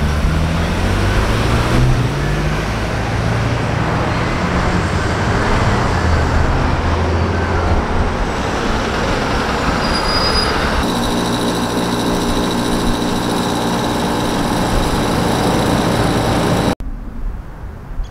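Street traffic at a crosswalk: cars pulling away, their engine note rising, then a shuttle bus passing close with a steady engine hum. Near the end it cuts off suddenly to much quieter outdoor sound.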